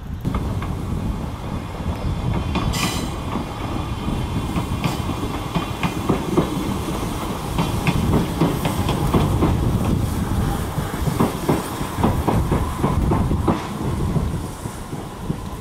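Tobu C11 123 steam tank locomotive hauling two passenger coaches slowly. Its wheels click and knock over rail joints and pointwork above a low rumble, with a short hiss about three seconds in.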